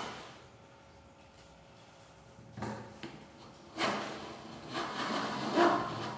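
Wooden hand plane shaving thin pine kumiko strips held in a planing jig. A short scraping stroke comes a little over two seconds in, then a longer stroke of about two seconds.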